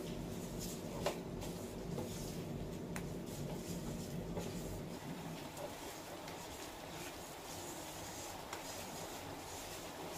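Silicone spatula stirring and scraping thick flour-and-ghee paste around a nonstick pan as it roasts on low heat: soft rubbing scrapes with a few light taps.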